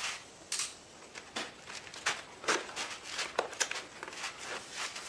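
Irregular rustling and short knocks as a paper-wrapped gas cylinder is handled, with a few footsteps on a concrete floor.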